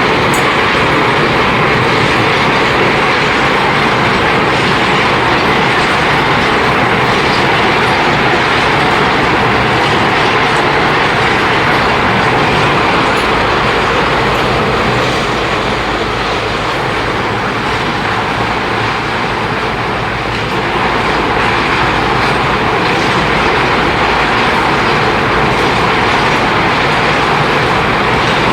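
Ore-milling machinery at a gold processing plant running steadily with a loud, dense clattering rumble that dips a little in loudness midway.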